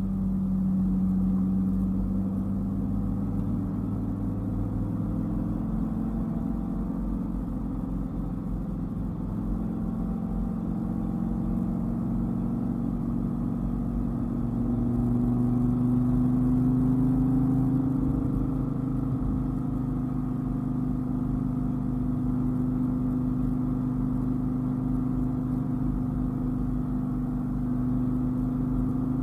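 Dodge Viper's V10 engine running under way at steady cruising revs, its note sagging slightly early on, then rising and getting louder about halfway through as it pulls harder, before settling again, over a low rumble of road noise.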